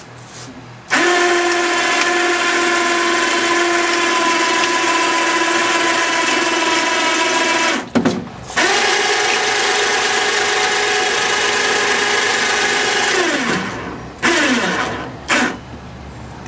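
Electric hoist motor running with a steady whine while it moves an outboard motor onto a test tank. It runs in two long spells with a short break about eight seconds in. Near the end it winds down with a falling pitch, then gives two short jogs.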